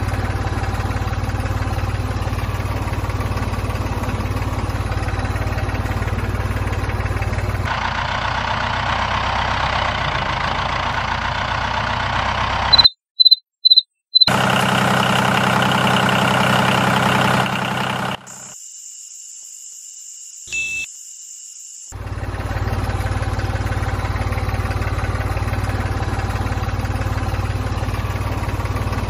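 A toy tractor's small electric motor running with a steady buzz. Partway through, the sound changes for several seconds, four short high beeps come in quick succession, and then it goes much quieter for a few seconds before the steady buzz returns.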